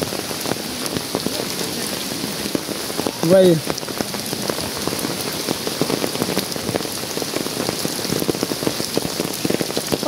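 Heavy rain falling steadily, with many individual drops striking close by as sharp little ticks over an even hiss.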